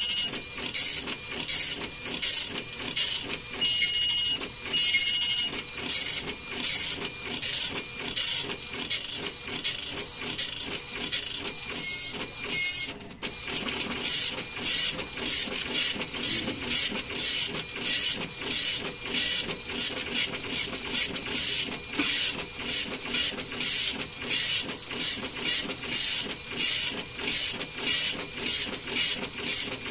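Compuprint 3056 dot matrix printer printing its settings page, the print head buzzing across line after line at about two passes a second. There is a short break about 13 seconds in, and the printing stops at the very end.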